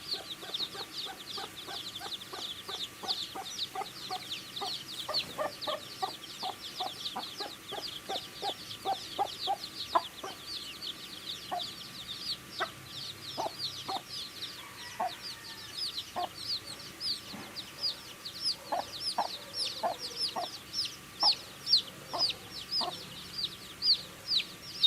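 A group of baby chicks peeping non-stop: a rapid stream of short, high, downward-sliding peeps, with short lower ticks underneath.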